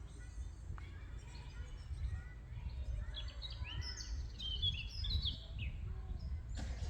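Small birds chirping and singing, a dense run of quick, high chirps and sweeps about three to five seconds in, over a steady low rumble.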